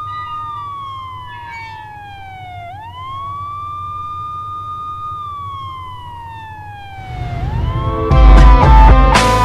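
A siren wailing: the pitch sweeps quickly up, holds, then slides slowly down, twice, over a low hum. Loud music with guitar comes in about eight seconds in.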